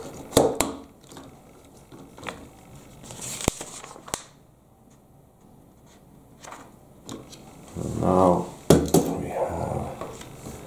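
Lego plastic pieces being handled and pressed together, with several sharp clicks in the first four seconds. A low voice murmurs briefly about two-thirds of the way through.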